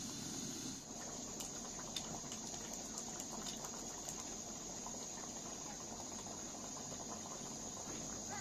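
Pot of rose petals in water boiling, a steady bubbling hiss with a few faint clicks.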